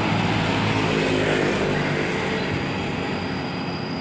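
Large diesel tour bus passing by, its engine drone and tyre noise slowly fading as it moves away.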